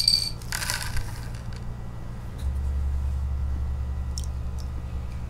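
Coarse sand sample poured from a small vial into a plastic gold pan: a click, then a short rustle about half a second in. From about two and a half seconds in, a steady low rumble.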